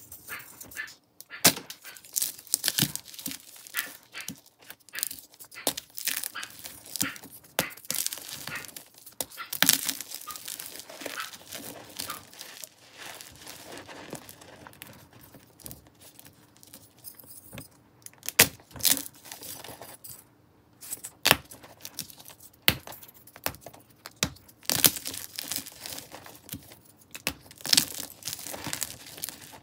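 Hands crushing and crumbling dusty, crunchy powder blocks: an irregular run of sharp crunches and crackles, with a few louder snaps, over a softer gritty rustle of powder and fragments.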